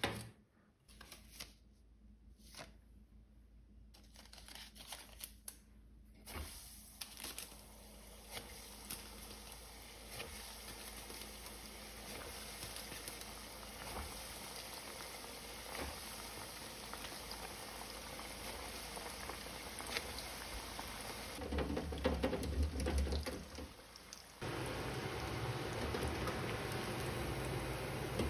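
Hot oil in an electric deep fryer sizzling around frying pommes dauphine balls: a steady hiss that starts about six seconds in and slowly builds, with a louder stretch of low rumbling and knocks near the end. Before it, a few light taps and rustles of hands rolling the dough balls in flour.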